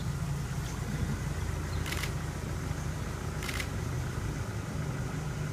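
Steady low motor hum, with two short sharp sounds about two and three and a half seconds in.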